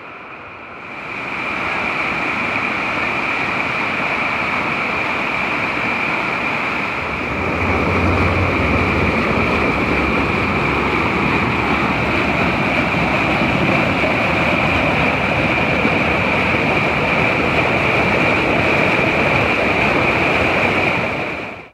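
River rapids: white water rushing steadily over rock ledges. It grows louder about a second in and again about seven seconds in.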